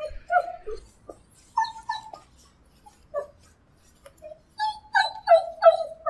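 A dog whimpering: short, high whines, some dipping in pitch, in scattered groups, with a quick run of about five near the end.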